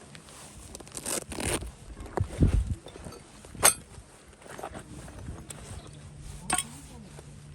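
Camping gear being handled: irregular rustling and scraping, with two sharp clinks about a third of the way in and again near the end.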